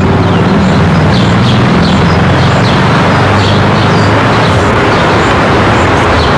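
Steady vehicle noise with short, high bird chirps repeating throughout.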